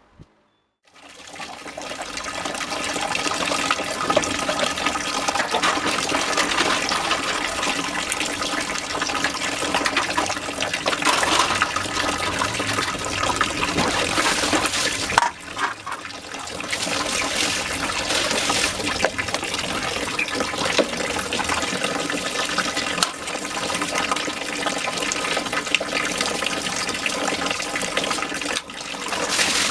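Steady rush of running or spraying water, with a short break about fifteen seconds in.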